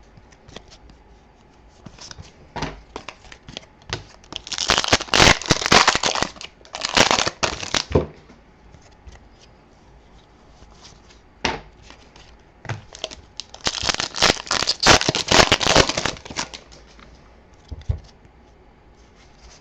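Trading-card pack wrappers being torn open and crinkled, in two long stretches of rustling and tearing about five seconds and thirteen seconds in, with scattered clicks of card handling between.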